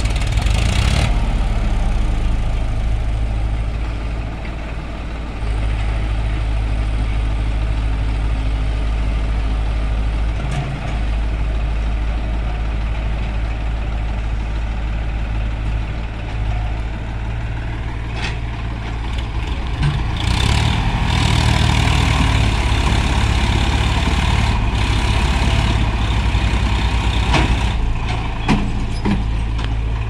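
Swaraj tractor's diesel engine running steadily as it pulls a trolley loaded with soil, louder from about twenty seconds in, with a few short knocks.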